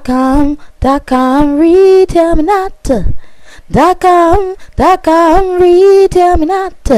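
A single voice singing unaccompanied, holding long notes in short phrases with brief pauses between them, the melody stepping up in pitch over the first few notes.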